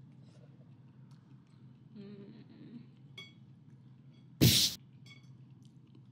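Wooden chopsticks clinking against a porcelain plate and a crab's shell in a few small ringing taps. About four and a half seconds in comes one loud, sudden burst of noise lasting about a third of a second, which cuts off abruptly.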